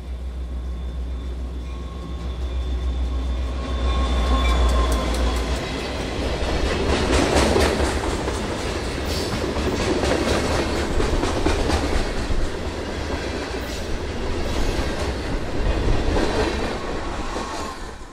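Diesel freight locomotive passing close with a deep engine rumble. A string of freight cars follows, rolling by with wheels clacking over the rail joints.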